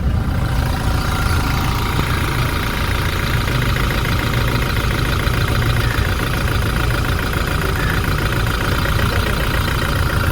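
Toyota Hilux 1GD four-cylinder diesel engine idling steadily, heard close to the engine bay.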